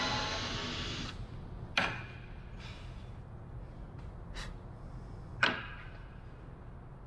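Cordless drill running as it bores a hole in wood, stopping about a second in; then two sharp knocks a few seconds apart, with fainter taps between, as the tool and parts are handled on the workbench.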